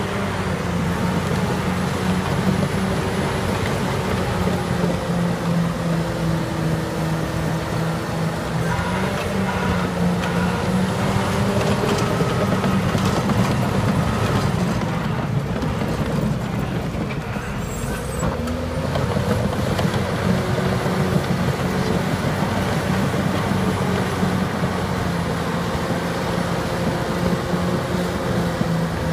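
Caterpillar D6T crawler dozer's diesel engine working under load as it pushes soil, its steady note rising and falling a little with the load, over the running of other earthmoving machines.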